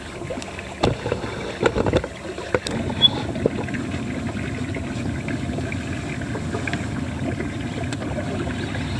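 Small waves lapping and slapping against a boat's hull on choppy water, with a few sharp knocks in the first three seconds.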